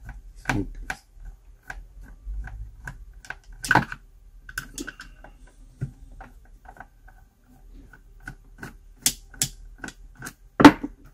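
Screwdriver working the small screws at the base of a steam iron's heating element, with scattered clicks and taps of metal tool on screw and plastic housing as the iron is turned in the hand, and a sharper knock near the end.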